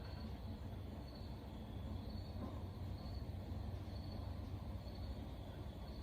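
Crickets chirping in an even rhythm, about one chirp a second, over a low steady hum.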